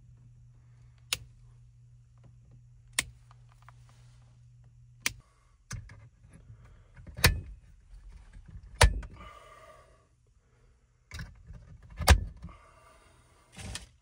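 Work on electrical hardware: sharp single clicks about every two seconds over a steady low hum, then heavier knocks and short bursts of clattering as metal parts in a fused disconnect box are handled.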